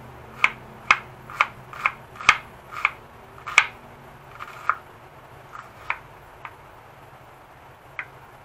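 Chef's knife slicing an onion on a wooden cutting board: sharp knocks of the blade on the board, about two a second for the first three seconds, then a handful more, further apart.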